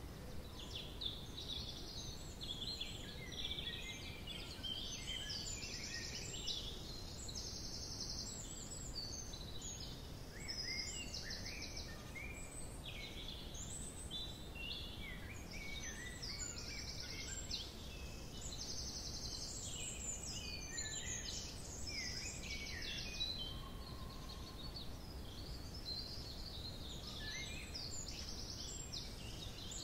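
Several small songbirds singing and calling, with many short chirps and some fast high trills overlapping throughout, over a steady low background rumble.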